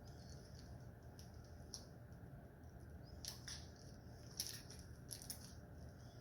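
Homemade Model Magic slime being kneaded by hand with lotion worked in: faint, scattered sticky squishes and crackles, a few of them sharper around three and four and a half to five seconds in.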